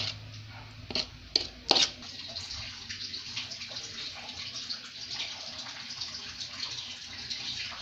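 Water running steadily, with a few sharp knocks in the first two seconds.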